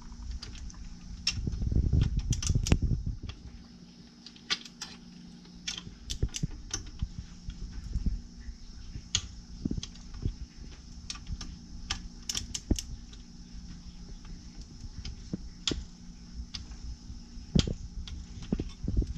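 Irregular metallic clicks and taps from hand tools working on the connecting rod bolts of a Briggs and Stratton 23A engine, with a heavier rumble of handling about two seconds in. A faint steady hum runs underneath.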